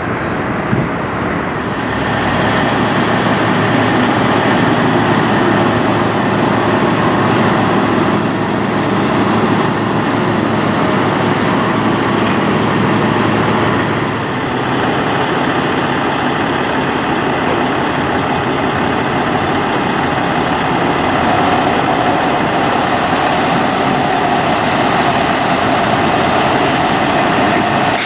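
Diesel semi trucks running and pulling through the lot, a steady engine and tyre noise with a brief dip about halfway through.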